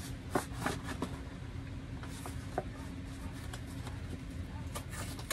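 Rolled piece of leather being handled and turned in the hands: a few soft rustles and light taps over a steady low hum.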